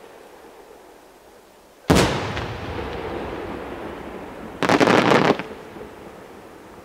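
Aerial firework shells bursting: one loud bang about two seconds in that echoes and fades slowly, then a quick cluster of sharp cracks about five seconds in.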